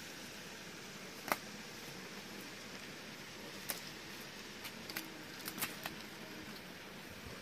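Light clicks and taps of a pen and plastic ruler knocked against a notebook as a cat paws at them, over a steady hiss. One sharp click about a second in, another near the middle, then a quick cluster of taps a little later.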